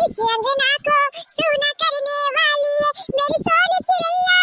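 A high-pitched, sped-up cartoon voice singing a slow melody in short phrases, ending on a long held note.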